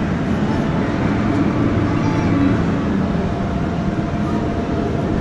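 Loud, steady machine drone of a large indoor hall, the kind made by air blowers and ventilation running, with a few faint steady tones in it.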